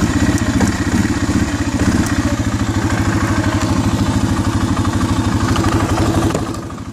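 2008 Arctic Cat 650 H1 ATV's single-cylinder four-stroke engine idling with an even, rapid thumping pulse. It drops in loudness briefly near the end.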